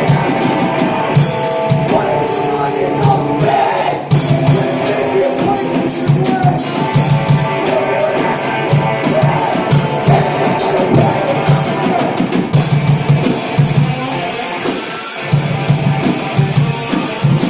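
A rock band playing live, loud and steady, with a drum kit beating out the rhythm under electric guitars.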